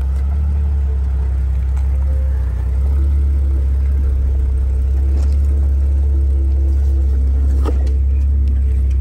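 Jeep Grand Cherokee engine rumbling low and steady as the SUV crawls slowly down a rocky, rutted trail past the camera.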